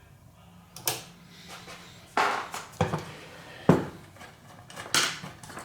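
Equipment being handled on a workbench: about five or six separate knocks and clatters, with a faint steady hum in the first second.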